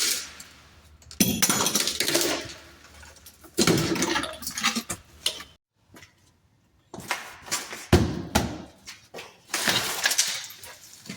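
Demolition of an old door opening: trim and sidelight being pried and pulled out, a run of irregular cracks, knocks and scrapes with clinks like glass or metal.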